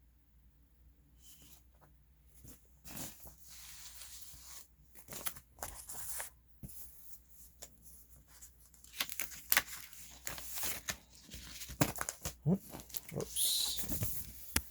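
Paper and cardboard record sleeves and inserts being handled during a vinyl unboxing: irregular rustling, sliding and crinkling with small knocks, growing busier and louder in the second half.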